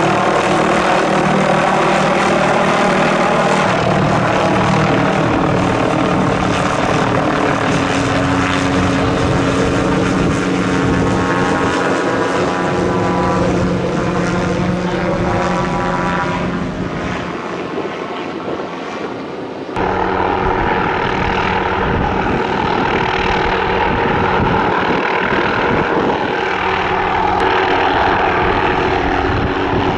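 MD530F light helicopter's turboshaft engine and main rotor running steadily, a dense whine over a rotor beat. Its tone sweeps and wavers in the middle as the helicopter moves. After a brief dip, the sound changes abruptly about two-thirds of the way through.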